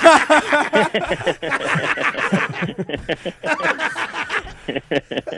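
Several people laughing out loud. The laughter is loudest right at the start and carries on in waves of short, rapid bursts.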